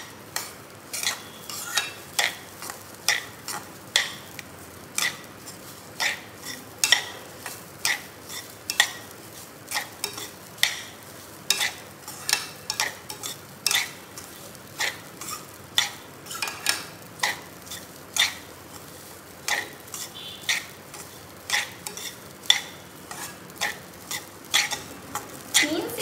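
Perforated metal spoon scraping and stirring raw rice grains around a metal pan, about two scrapes a second, as the washed rice roasts in a little oil.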